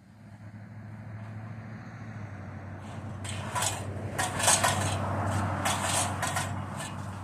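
An engine running at a steady low speed, growing louder, with a run of sharp cracks and snaps from about three seconds in.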